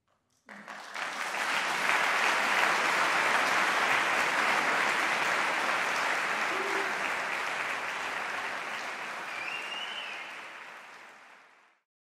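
Audience applauding, starting abruptly about half a second in and fading away near the end.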